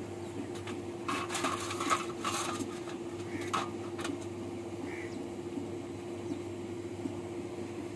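Metal diesel injector pipes, bolts and washers clinking and rattling in an aluminium basin as they are sorted by hand: a burst of clatter about one to two and a half seconds in, then a couple of single clinks. A steady low hum runs underneath.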